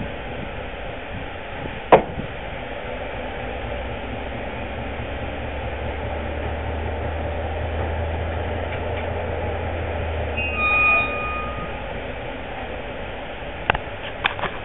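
Diesel engine of a 1944 Whitcomb 65-ton diesel-electric locomotive running with a steady low drone that drops away about eleven and a half seconds in. A brief high toot sounds just before that, with a sharp knock about two seconds in and several more near the end.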